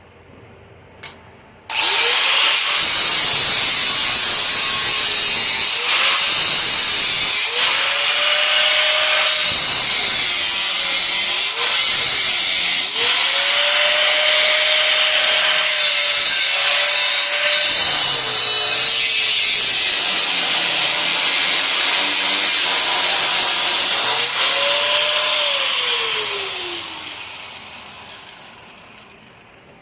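Electric angle grinder switched on and worked against steel, probably the frame rail, with a dense grinding hiss. Its motor pitch sags and recovers several times as it is pressed into the work. Near the end it is switched off and spins down, the pitch falling as it fades.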